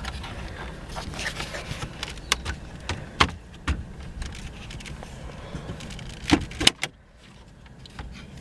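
Scattered clicks, taps and knocks of hard plastic trim pieces and small hardware being handled inside a car's cabin while the dash is taken apart. Two louder sharp knocks come close together about six and a half seconds in.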